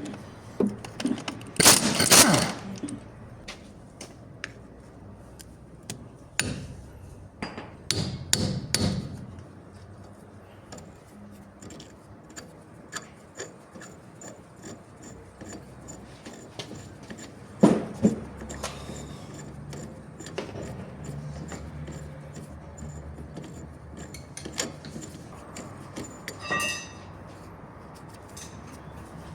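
Metal hand tools at work on a car's steering tie rod end: a series of sharp hammer blows on metal, with lighter tool clicks and clinks between them and a short ringing metal clink near the end.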